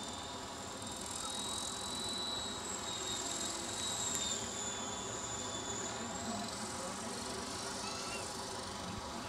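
Ikarus Eco 8 electric RC helicopter in flight, its motor and rotor head giving a steady high-pitched whine that drifts slightly up and down in pitch as it manoeuvres.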